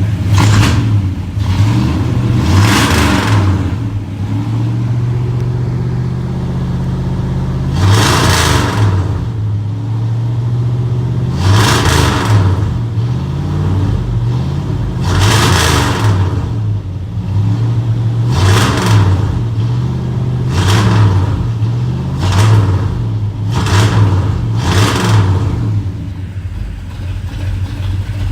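Truck's 390 V8 on a freshly fitted 750 Holley 4160 four-barrel carburetor, idling and blipped up about nine times, each rev rising and dropping back to idle. The throttle snaps test for an off-idle hesitation, and a little of it is still there.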